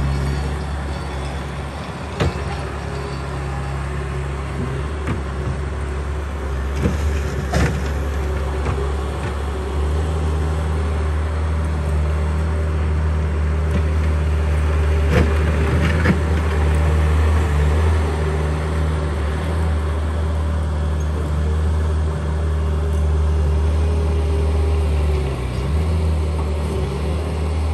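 Compact track loader's diesel engine running steadily with a low drone, which grows louder about a third of the way in as it works the dirt. A few sharp knocks stand out, two of them close together just past the halfway point.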